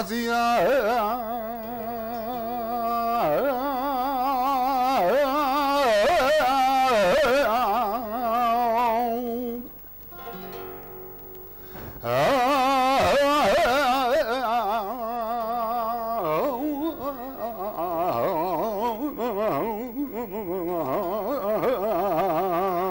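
Male flamenco singer singing a malagueña in long, wavering, ornamented notes over flamenco guitar accompaniment. About ten seconds in the voice stops for a couple of seconds while the guitar plays on quietly, then the singing comes back in.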